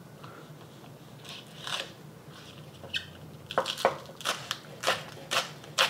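Knife cutting green onion on a cutting board: a regular series of short cuts, about two a second, starting a little past halfway in.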